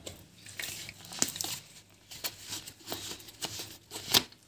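A small soy sauce bottle being worked open by hand: irregular small clicks, crinkles and scrapes of the cap and its seal, with the sharpest click about four seconds in.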